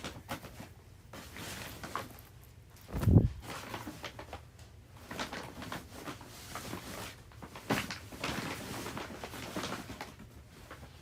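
Clothes being handled and tossed in with rustling and scattered knocks, and one heavy thump about three seconds in.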